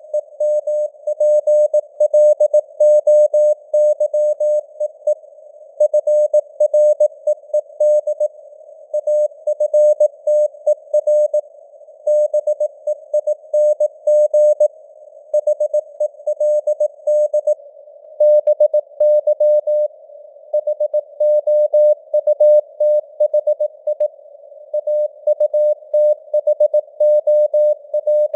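Morse code (CW) at 18 words per minute: a single steady mid-pitched tone keyed on and off in quick dots and dashes, with short pauses between words, spelling out news headlines. A narrow band of hiss around the tone simulates radio receiver noise.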